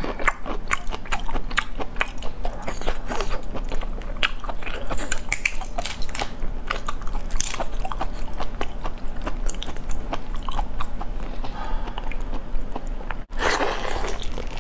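Close-miked eating of a raw marinated black tiger prawn: wet crunchy bites and chewing, with many small sharp clicks and crackles throughout and a louder wet burst near the end.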